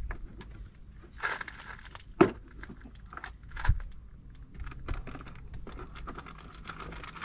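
Irregular crinkling and rustling handling noises, broken by a few sharp knocks, the loudest about two seconds in.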